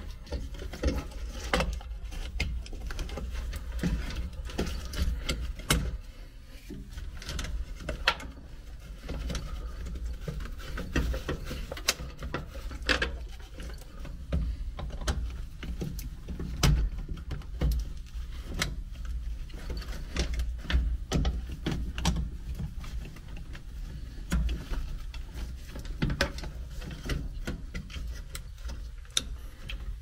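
Irregular clicks, taps and rattles of electrical wires and connectors being handled against the sheet-metal control panel of an air handler, over a low steady rumble.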